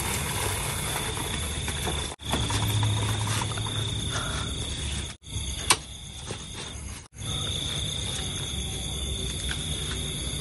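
Outdoor night ambience: a steady high-pitched whine over a low rumble, cut off briefly three times, with a single sharp click a little after the middle.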